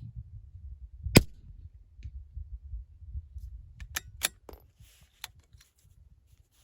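A single shot from a Ruger Precision Rimfire .22 LR rifle about a second in. About three seconds later come several quick metallic clicks as the bolt is worked to eject the spent case and chamber the next round.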